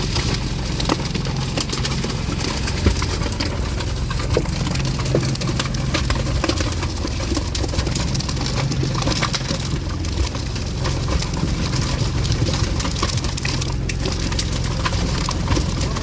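An engine on a fishing boat running steadily, a low even hum, with scattered small knocks and clicks over it.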